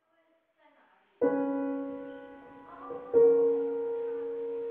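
Soundtrack music: a few faint notes, then a ringing chord struck about a second in and a second chord about three seconds in, each left to sustain and slowly fade.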